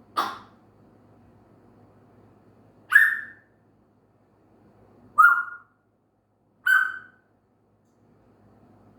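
African grey parrot giving four short, sharp whistled calls a couple of seconds apart, each a single clipped note that drops slightly at the end: attention-seeking calls.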